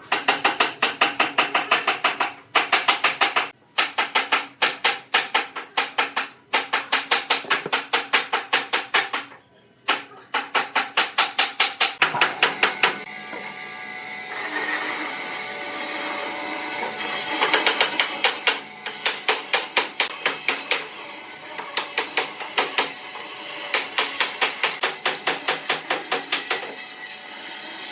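Wood lathe turning a vase blank with a turning tool on it: rapid, even knocks, several a second, in runs broken by short pauses. About halfway through, a steady hiss of continuous cutting joins the knocks.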